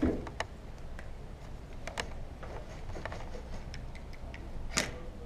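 A few sharp clicks and knocks at irregular intervals over a low steady rumble, the loudest right at the start and near the end.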